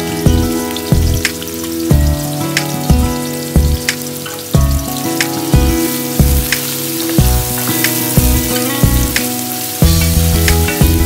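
Sliced onions sizzling and frying in hot oil in a pan, heard under background music with a steady beat.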